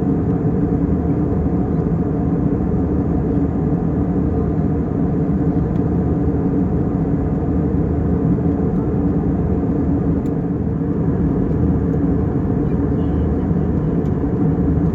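Steady in-flight cabin noise of an Airbus A320: the even, deep rush of airflow and engines.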